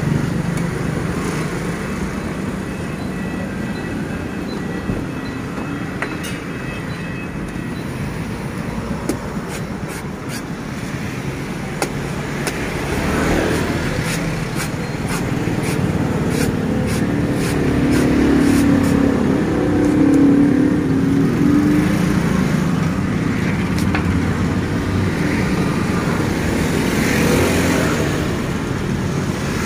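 Steady road traffic with a motor vehicle engine swelling past in the middle, and a scatter of sharp knocks from a cleaver chopping into a green coconut's husk.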